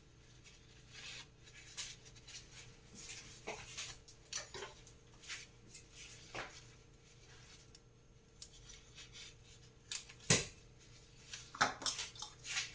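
Scattered light clicks, taps and rustles of small plastic kitchen items and tissue being handled, with one sharp click about ten seconds in. A faint steady hum runs underneath.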